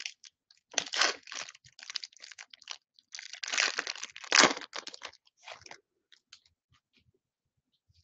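Foil wrapper of a trading card pack crinkling and crackling as it is torn open by hand, in irregular bursts for about five seconds, then only a few faint rustles near the end.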